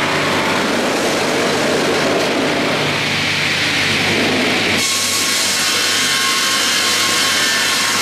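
StrojCAD D9 double-bladed circular sawmill cutting spruce as its carriages feed the log through the two blades, over a steady motor hum. About five seconds in, the sound changes abruptly to a brighter, hissier running.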